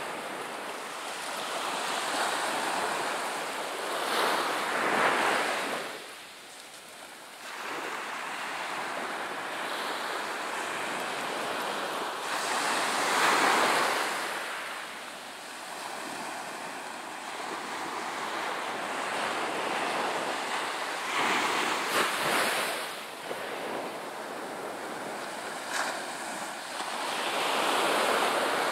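Ocean surf breaking and washing up a sandy beach, the rush of the waves swelling and fading every several seconds.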